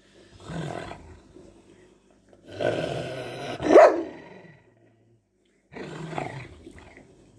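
Golden retriever growling and grumbling with bared teeth, in three bouts. The middle bout is the longest and loudest and rises sharply in pitch near its end.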